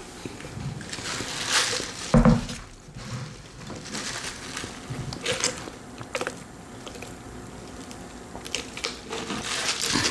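A person eating: irregular wet chewing and mouth sounds, with a few sharper noises.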